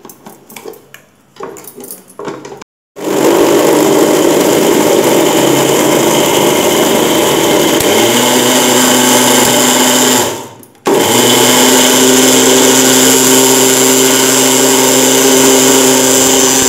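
Electric mixer-grinder with a steel jar grinding cooked green chillies and lemon juice into a paste. After a few light clicks of the jar being set in place, the motor starts about three seconds in and runs at full speed, winds down briefly around the ten-second mark, then runs again steadily.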